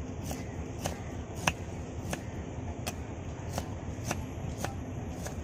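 Knife chopping a guava on a small wooden board: a string of sharp knocks, one about every two-thirds of a second, over a low steady rumble.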